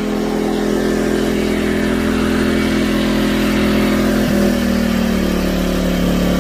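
Portable generator engine running steadily under load while it charges a power station, its pitch dropping slightly a little over four seconds in as the charging draw climbs.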